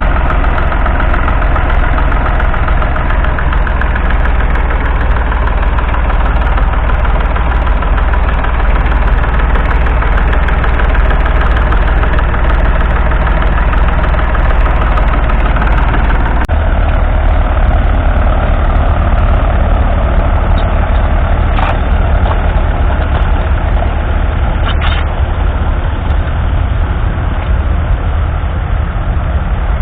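Vintage diesel tractor engine running steadily under load while ploughing. The engine note changes abruptly about halfway through.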